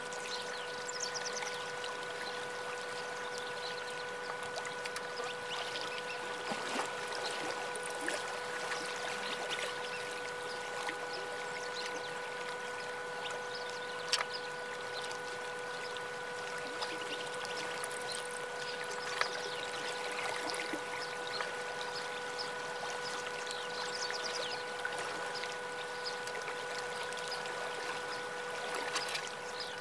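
Soft scratching of a thin hand tool scraping and smoothing the surface of an unfired clay teapot, over a steady hum held on one pitch with its overtones. A single sharp click about fourteen seconds in.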